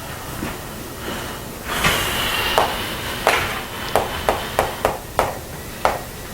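Writing on a classroom board: a short scraping squeal about two seconds in, then a run of about eight irregular sharp taps over the next three seconds.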